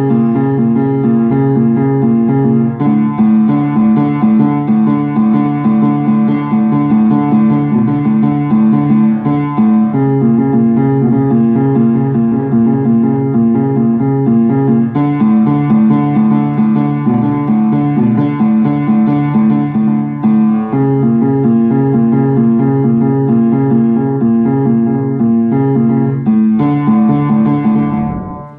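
Piano playing an instrumental piece of repeated chords, the harmony changing every few seconds; the playing stops just before the end.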